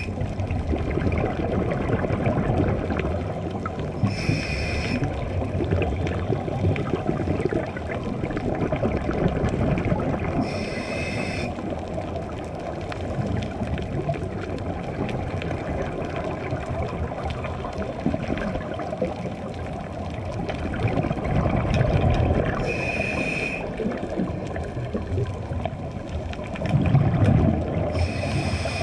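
Underwater audio of a scuba dive: a steady muffled rumble of water against the camera, broken four times by a second-long burble of exhaled bubbles from a diver's scuba regulator, about every six seconds apart and once with a longer gap.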